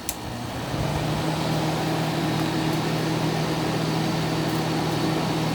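General Electric Fashionette 6000 window air conditioner switched up to high cool: a click at the control, then within the first second the fan speeds up into a steady, louder blowing with a low hum.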